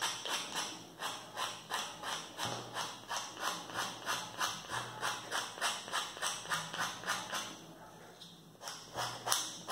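Nail file rubbing back and forth along the edge of glued-on scrapbook paper, sanding off the overhang in short, even strokes at about three a second. The strokes pause briefly near the end, then start again.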